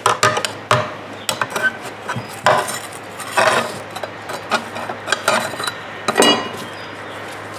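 Thin sheet-steel shell of a Honda EU2000i generator muffler being pried open with a flat metal blade: irregular metallic clinks, scrapes and clanks, a few of them ringing briefly.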